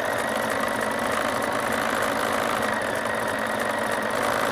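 Bernina 790 sewing machine running at a steady speed, sewing a long-and-short basting stitch along a hem.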